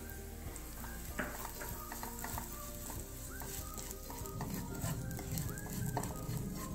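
Wooden spatula stirring poppy seeds and browned onion in a little oil in a non-stick kadai: repeated scraping and tapping against the pan over a light sizzle, busier and a little louder from about four seconds in.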